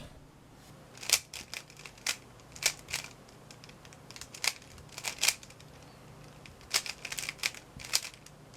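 Scattered sharp clicks, some single and some in quick clusters of two or three, over a faint steady hum.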